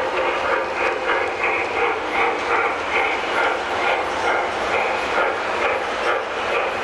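O gauge model steam locomotive running with its electronic sound system chuffing in a steady rhythm of a few chuffs a second, over the continuous rumble of its wheels on the track.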